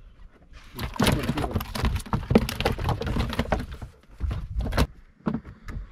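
A freshly caught fish flapping in a metal bucket among other fish: a dense run of irregular slaps and knocks for about three seconds, then a few separate knocks.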